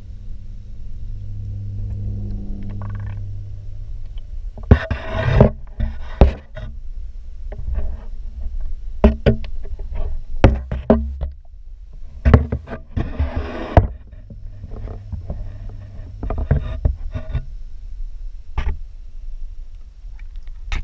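Muffled sound picked up by a GoPro underwater in an aquarium: a steady low hum with many knocks and thuds, and short rushes of water noise as the camera moves about.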